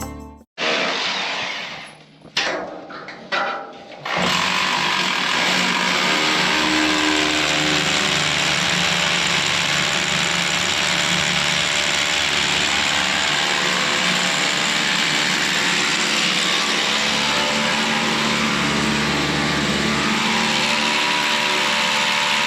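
Hammer drill boring anchor-bolt holes into a concrete floor: a few short bursts, then from about four seconds in a long, steady run of drilling.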